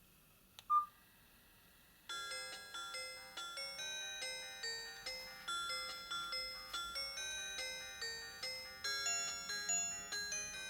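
A Nokia 5310 XpressMusic phone playing a ringtone through its speaker: a quick melody of short notes, each fading fast, starting about two seconds in. Just under a second in, a single sharp click with a short beep is the loudest sound.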